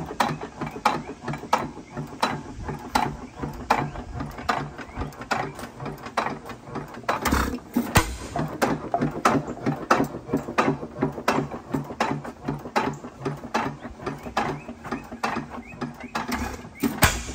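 6 hp headless Witte hit-and-miss engine, a hopper-cooled single-cylinder engine, running with an even clatter of valve gear and governor clicks, about two to three a second, as it coasts on its flywheels. Heavier low thumps about seven seconds in and near the end are its firing strokes.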